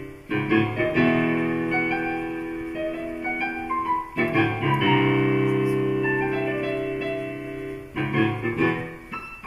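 Piano playing: a few chords struck in quick succession about a second in, again near four seconds and near eight seconds, each left ringing and fading away while single notes step up and down above them.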